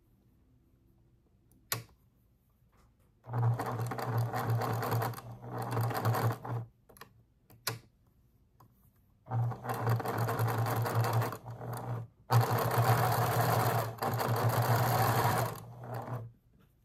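Electric sewing machine stitching a seam through fabric pieces in three runs of a few seconds each, stopping briefly between them, with a sharp click shortly before the first run.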